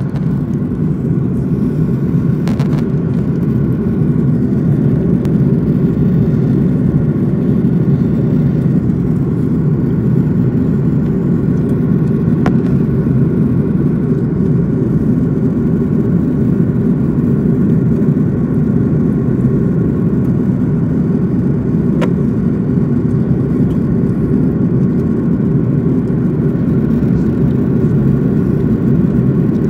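Airbus A330 in flight heard from inside the passenger cabin: its turbofan engines and the airflow make a deep, steady rumble with faint steady higher tones above it. A few faint brief clicks come through about three seconds in, near the middle, and about two-thirds of the way through.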